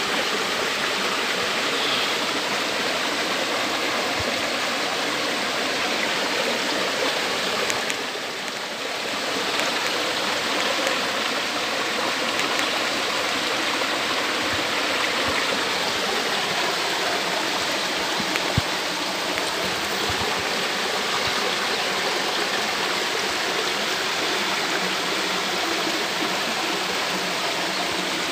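Shallow stream water rushing steadily over rocks, dipping briefly about a third of the way in. A single brief knock about two-thirds through.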